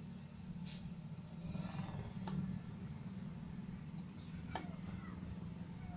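Pliers working on the leads of a replacement filter capacitor on a CRT TV's circuit board: three faint, sharp clicks, the clearest about two seconds in, over a steady low hum.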